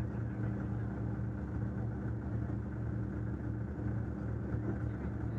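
Demolition derby car's engine running steadily with an even, pulsing beat.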